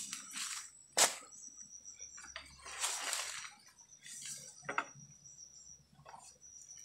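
Leaves and stems rustling and snapping as someone pushes on foot through undergrowth, with sharp snaps about a second in and near five seconds. A thin, high insect trill comes and goes behind it.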